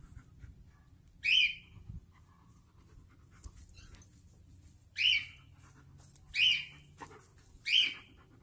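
A dog giving four short, high-pitched yelps: one about a second in, then three more close together in the second half.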